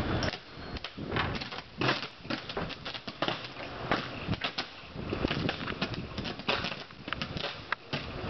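Overhead electric power lines shorting out: irregular crackling with sharp pops, the sound of electrical arcing on the wires.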